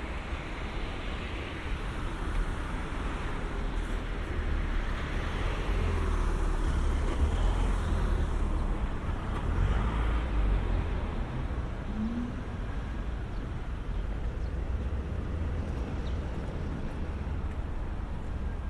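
Road traffic on a city street: cars driving past, the sound swelling for several seconds around the middle as a vehicle goes by.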